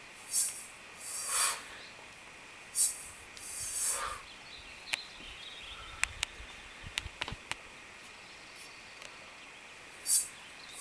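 Woman working out with a steel mace: several short, sharp hissing bursts as she swings it. Around the middle come a few light knocks and taps as she drops to one knee on the wooden deck. A faint steady high tone runs underneath.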